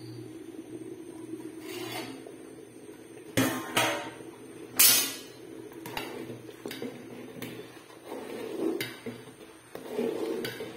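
Metal clatter as a steel plate lid is lifted off a metal cooking pot and knocked down, with the sharpest clanks about three and five seconds in. After that a ladle scrapes and clinks against the inside of the pot while stirring the khichuri.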